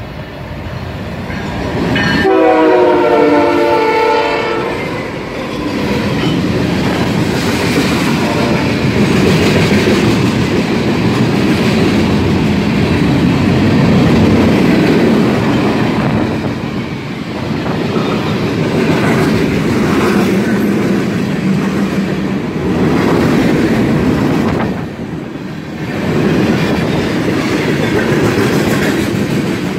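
Freight train's diesel locomotive sounding one horn blast of about two seconds as it approaches, then the locomotives and a long string of tank cars passing close by: a steady loud rumble with wheels clicking over the rail joints, easing briefly near the end.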